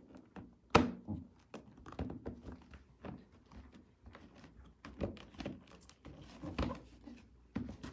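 Hard plastic chick-brooder wall panel being pushed down by hand onto its pegs: irregular clicks and thunks as the pegs seat in their holes, the loudest about a second in.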